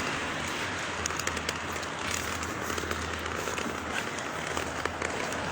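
Steady hiss of rain outdoors, with scattered small crackling ticks and a faint low rumble underneath.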